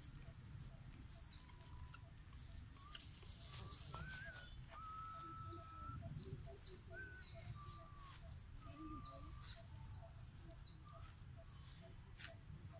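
Faint animal calls, most likely birds: a steady series of short high chirps roughly once a second, with a few longer whistled notes, over a low rumble.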